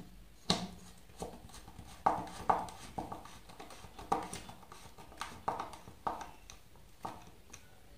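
Screwdriver turning screws into a small DC motor's plastic mount on a wooden board: scattered light clicks and knocks, sometimes two in quick succession.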